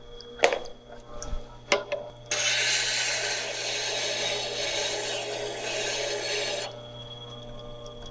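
A steel woodturning tool ground against the turning stone of a Tormek wet sharpener: a loud, steady grinding rasp lasting about four seconds, starting a couple of seconds in, over the machine's low motor hum. Two sharp clicks come before it.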